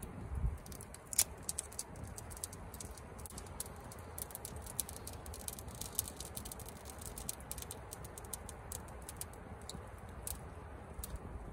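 Scattered small clicks and crackles of a roasted chestnut's shell being picked off by hand, over a low steady rumble.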